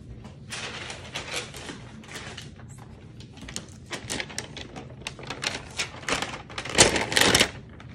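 A mold liner being peeled off a loaf of cold-process soap: a run of crackling, crinkling rustles with sharp clicks, loudest near the end.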